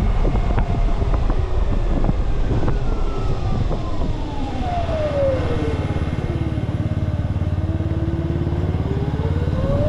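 Electric motor of an Ather 450X scooter whining in top-speed mode, with the rear wheel spinning free. The whine falls slowly in pitch for several seconds as it slows, then rises again near the end, over a steady low rush.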